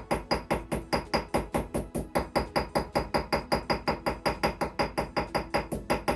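Small hammer tapping rapidly on a knife handle's shield pins to peen them over, an even run of about seven light strikes a second, each with a short metallic ring.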